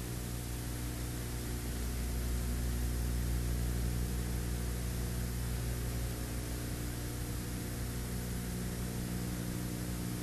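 Steady low electrical hum under an even hiss, with no speech or music: mains hum and tape noise of an old analogue video recording.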